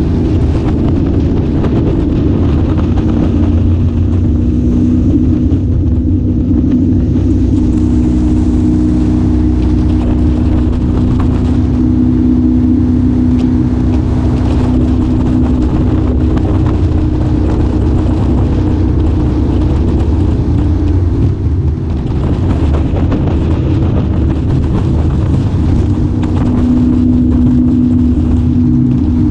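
Boat engine running steadily under way, a constant hum with a low rumble and no change in speed.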